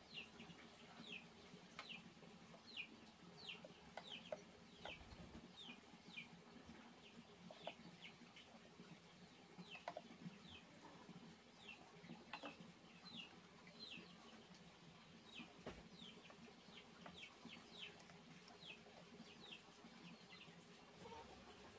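Faint peeping of young chickens: a steady run of short high peeps, each falling in pitch, about two a second, with a few faint clicks now and then.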